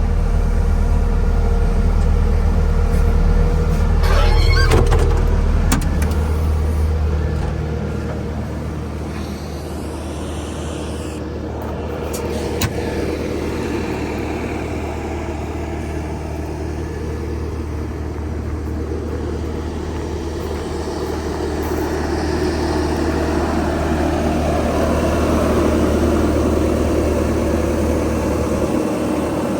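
Bobcat S650 skid steer loader's diesel engine running steadily, its pitch rising and falling gently as the machine works, with a few metallic clanks, one about four seconds in and another near the middle.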